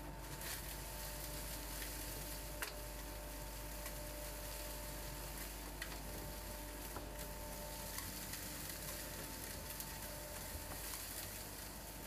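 Vacuum running with a steady whine and hiss, its wide corrugated hose sucking up hay and dirt from wooden floorboards, with scattered sharp clicks of debris going through.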